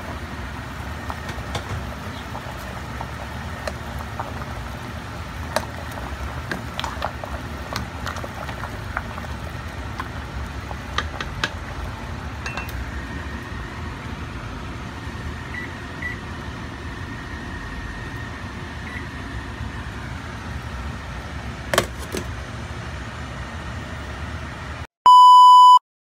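Pot of sugar cane and carrot soup boiling on an electric hob: a steady low rumble with scattered clicks and ticks. Near the end the rumble cuts off and a loud electronic beep sounds for under a second.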